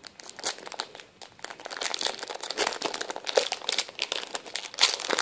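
Foil Pokémon booster pack wrapper crinkling and crackling as it is torn open by hand, in a quick series of sharp crinkles.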